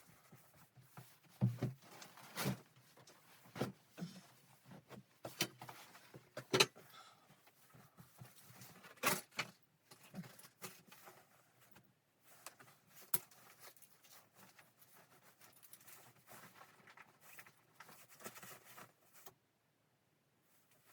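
Irregular knocks, clicks and light clatter of objects being handled in a small room, stopping shortly before the end.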